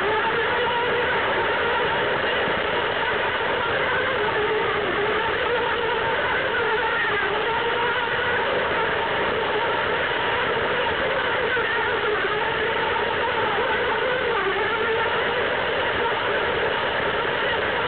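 Battery-powered Plarail toy train's small electric motor whirring steadily, with its plastic wheels running on plastic track; the whine wavers a little in pitch.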